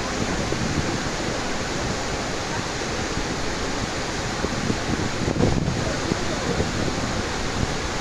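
Athirappilly Falls in full spate after heavy rain: a steady, even rush of falling water, with a brief surge a little past five seconds in.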